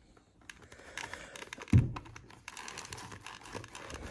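Motorcycle helmet being handled and squeezed by hand: the shell, foam liner and padding give irregular clicks, creaks and rustles as the shell is flexed to feel for crash damage, with one dull knock a little under two seconds in.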